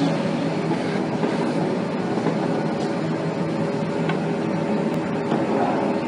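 Steady hum of a running multi-spindle drilling and dowel insertion machine's electric motors, with a few faint clicks and knocks.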